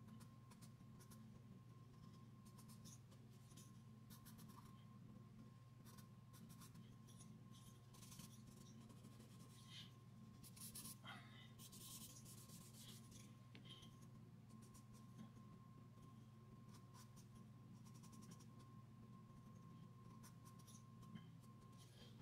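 Faint scratching and rubbing of a charcoal pencil on drawing paper in short, irregular strokes, over a steady low hum.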